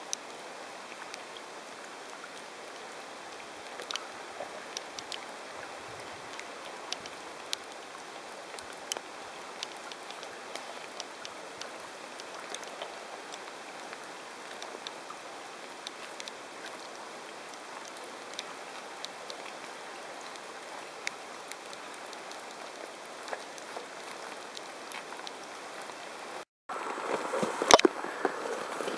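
River water flowing and rippling, with scattered small drips and splashes. Near the end, louder knocks and splashes close by.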